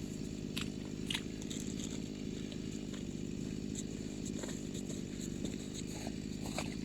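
A small engine drones steadily in the background, joined by a few faint clicks.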